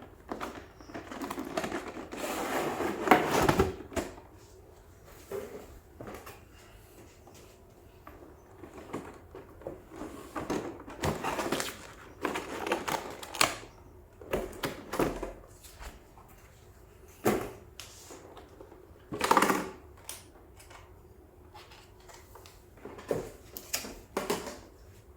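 Box and packaging being handled and opened by hand: irregular rustles, scrapes and sharp clicks in short bursts, with quiet gaps between.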